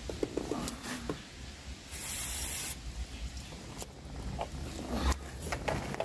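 Small clicks and scrapes of hands working a power mirror switch connector and its terminals, with one short spray hiss, under a second long, about two seconds in, as the terminals are cleaned.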